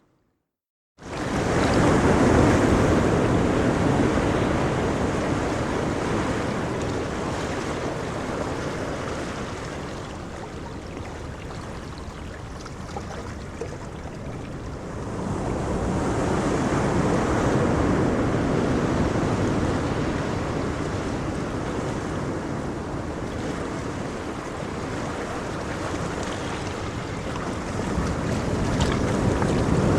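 Ocean surf: waves breaking and washing up in slow swells, with a fresh surge about halfway through and another near the end, and wind on the microphone. It cuts in suddenly after a second of silence.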